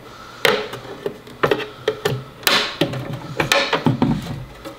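Plastic snap-fit top cover of a Verizon 4G LTE home internet gateway being pried off with a Swiss Army knife's screwdriver tip: a series of sharp, irregular clicks and snaps as the tool works along the edge and the cover's clips pop loose.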